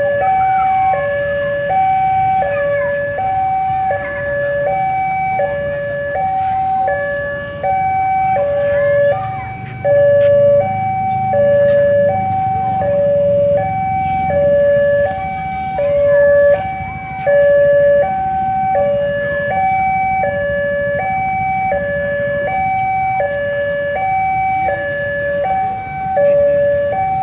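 Railway level-crossing warning alarm sounding from the signal post's horn loudspeaker: two tones alternating high and low, about one high-low cycle a second. A low rumble sits underneath through the middle.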